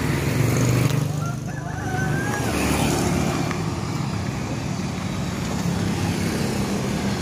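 Street traffic noise with a steady low rumble of motor vehicles running nearby.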